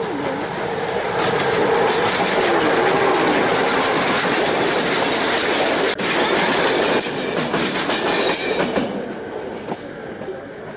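Model train running past close by on its track, with a dense rattle of wheels on the rails. It swells about a second in, holds, and fades after about nine seconds, with one sharp click about six seconds in.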